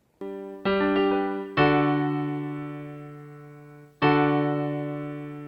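Piano chords: two quick chords in the first second, then two long chords, each struck and left to ring and die away slowly.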